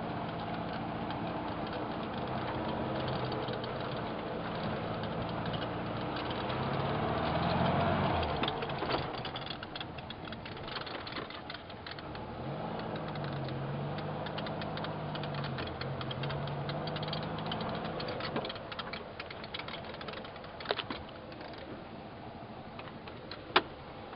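A vehicle engine running, speeding up to a peak about eight seconds in and then dropping off sharply. It picks up again for a few seconds in the middle, its pitch wavering up and down, then fades. Two sharp clicks come near the end.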